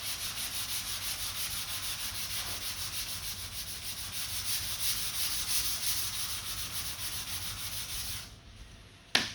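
Lacquer primer over a body-filler dent repair being block-sanded by hand: sandpaper on a sanding block rubbing in quick, even back-and-forth strokes, stopping about 8 seconds in. A sharp knock follows near the end.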